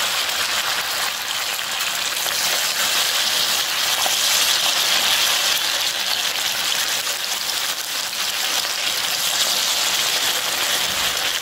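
Hot oil sizzling steadily as balls of rice pakoda batter deep-fry in a pan, an even, hissing bubble.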